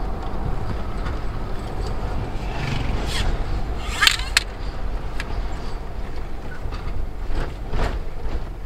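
Car driving along with a steady low engine and road rumble, with a few short sharp clatters about four seconds in and again near the end.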